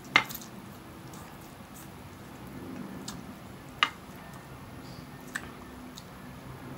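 Spicy instant noodles being slurped and chewed with wooden chopsticks: a few short, sharp wet smacks, the loudest just at the start and about four seconds in.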